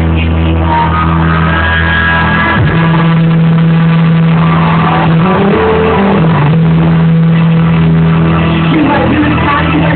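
Loud dance music over a club sound system, with long held bass and synth notes that shift pitch every few seconds. It is recorded from the crowd, so it sounds dull, with no highs.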